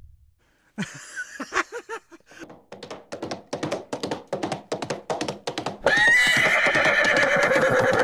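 Horse sound effects: hoofbeats in a quick, even clip-clop, then a loud, long whinny for about the last two seconds.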